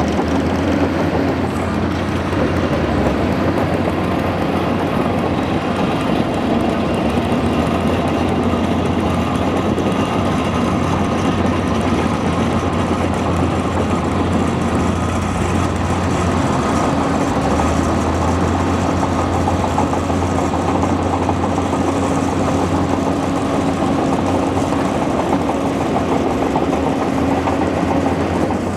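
Bulldozer's diesel engine running steadily under load, with a constant low hum.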